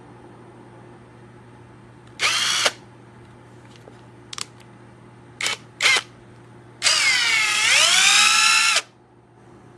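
Cordless impact wrench motor whirring in short trigger pulls: a half-second burst, a brief blip, then two quick bursts. Then a run of about two seconds in which the pitch dips and climbs back up.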